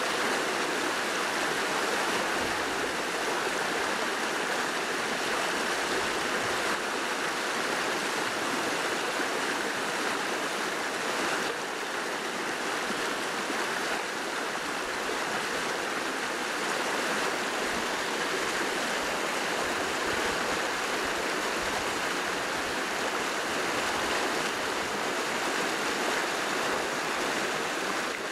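Fast-flowing stream rushing over rocks: a steady, even rush of running water.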